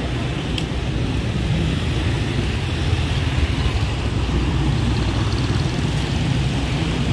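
Street traffic: motorcycles and cars passing on the road, a steady low rumble.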